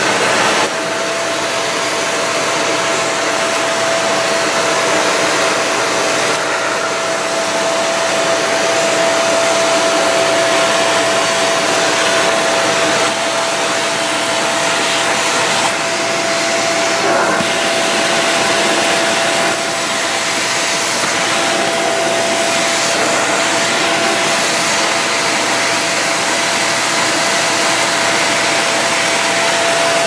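Samsung Motion Sync vacuum cleaner running steadily: a loud rush of suction air with a steady whine from the motor, as its floor brush is pushed over carpet.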